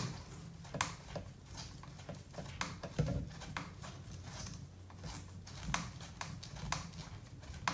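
Irregular light clicks and taps of small plastic and metal parts being handled on a plastic RC truck chassis while a screw is worked in by hand.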